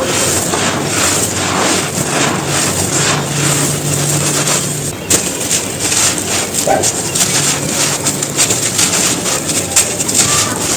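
Dry, dusty soft bricks being crushed and crumbled: dense, continuous crunching made of many small crackles, with a brief let-up about halfway.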